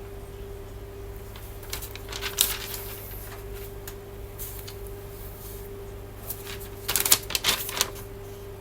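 Two bursts of rapid clicking, like fast typing on a keyboard: one about two seconds in, the other, louder one, about seven seconds in. A steady low hum runs underneath.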